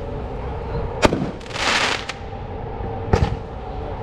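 A 9-shot, 350 gram consumer firework cake firing. There is a sharp bang about a second in, then a brief hissing rush, and another sharp bang about three seconds in.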